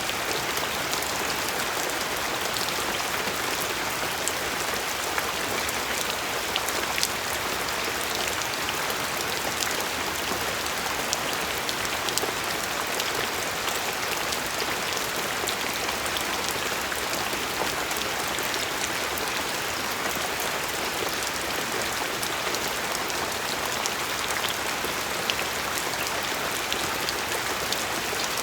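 Steady rain falling on a surface, an even hiss with scattered sharper drop ticks.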